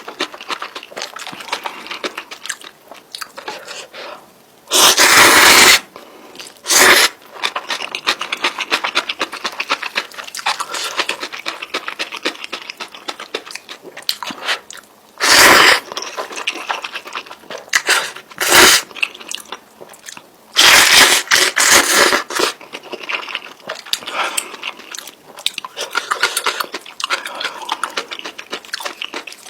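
Close-miked eating of spicy instant noodles with fried egg and sausage: steady wet chewing and biting with a fast patter of small mouth clicks, broken by several loud, noisy bursts about a second long.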